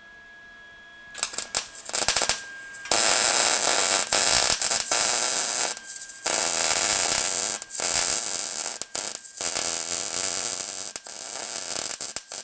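MIG welding arc crackling and frying as a Lincoln 140 MIG welder runs beads on quarter-inch steel plate. It sputters a few times about a second in, then runs steadily with a few short breaks. Near the end it cuts off abruptly as the welder shuts down, which the owner puts down to it getting too warm.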